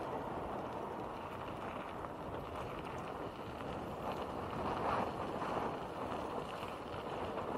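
Steady rushing of wind over the microphone while riding a bicycle, with the tyres rolling on a rough path underneath.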